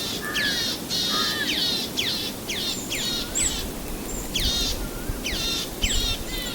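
Birds chirping: a quick string of high calls, each sweeping down in pitch, about one or two a second, with a short pause about halfway through.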